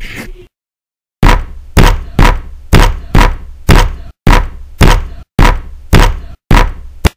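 A hip-hop track cuts off, and after a short silence a string of about a dozen loud, heavy slam sound effects follows, roughly two a second. Each is a hard hit with a short ringing tail, and the last is cut short.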